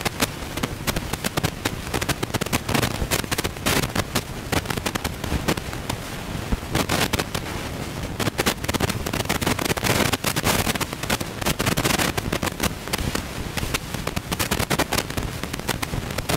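Dense, irregular crackling and rattling inside a semi-truck cab, over the low rumble of its running engine.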